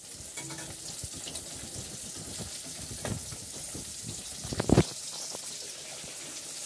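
Small pieces of fish frying in hot oil in a pan, a steady sizzling hiss, with bumps from the phone being handled; the loudest bump comes about two-thirds of the way through.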